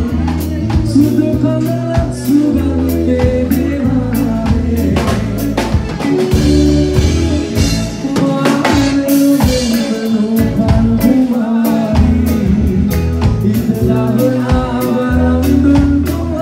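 A man singing a Sinhala song into a microphone with a live band: a drum kit keeping a steady beat under a bass line of held low notes.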